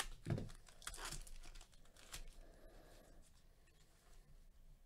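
Foil trading card pack being torn open and its wrapper crinkled by hand: faint tearing and rustling, mostly in the first two seconds, then dying away.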